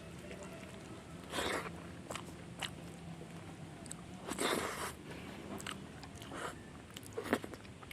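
Close-miked eating: a person biting and chewing a meal of fish curry and fried taro stems, heard as a few short separate bursts of mouth noise, the longest about halfway through.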